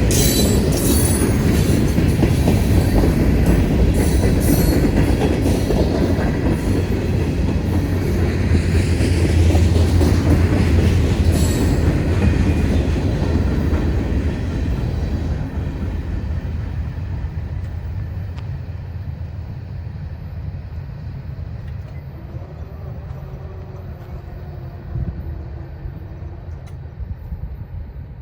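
Freight train rolling past a grade crossing: a heavy low rumble with sharp wheel squeals and clicks through the first dozen seconds, then the whole sound fades steadily as the train moves off.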